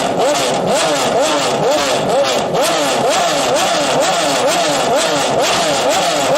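Sports car engine revved in quick repeated blips, its pitch rising and falling about twice a second; the sound cuts off suddenly at the end.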